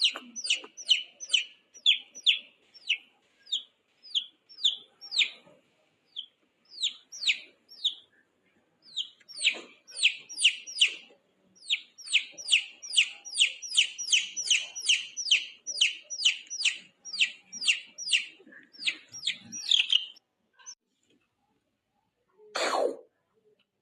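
High-pitched chirping cries from a small animal, each a short downward-sliding peep, repeated two or three times a second. They stop about twenty seconds in, and a single short noisy burst follows near the end.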